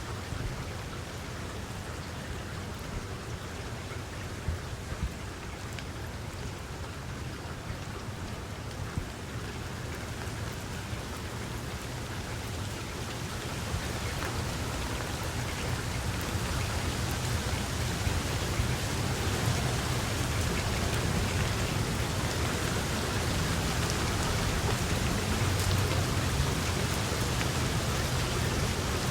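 Steady rain falling, with scattered louder drops hitting a surface; the rain grows heavier about halfway through.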